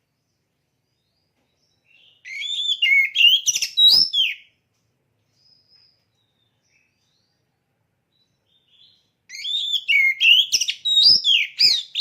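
Oriental magpie-robin (kacer) singing two loud phrases of rapid, varied whistled notes, each about two seconds long, with a pause of about five seconds between them.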